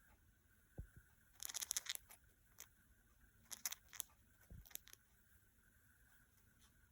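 Cockatiel grinding its beak: faint bursts of rapid grating clicks, one about a second and a half in and another around three and a half seconds, with a few single clicks between. Beak grinding is the sign of a relaxed, drowsy bird settling to sleep.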